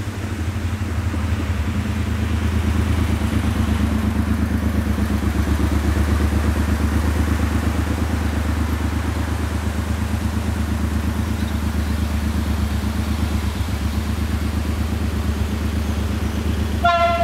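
Cruiser motorcycle engine running with a low, fast, even throb, growing louder over the first few seconds as the bike rolls up, then idling at the closed barrier. Near the end a brief high tone cuts in.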